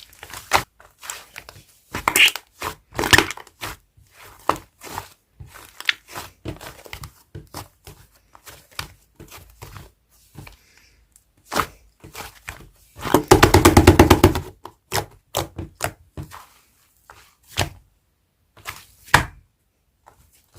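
Soft, fluffy clay slime being squeezed, pressed and stretched by hand: scattered sticky squishes and clicks, with a dense run of rapid crackling about 13 seconds in.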